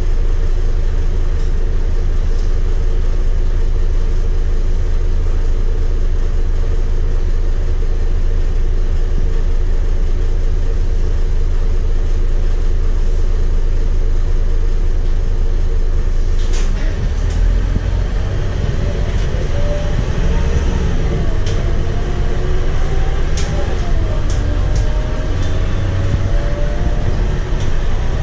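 Scania DC9 8.9-litre five-cylinder diesel of a Scania K230UB bus, heard from inside the cabin. It idles steadily at first, then a little over halfway in the bus pulls away. The engine note climbs and drops repeatedly as the ZF six-speed automatic shifts up, with a few sharp clicks and rattles in the cabin.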